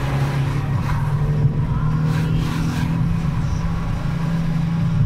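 A car driving along a street, its engine hum and road noise heard steadily from inside the cabin.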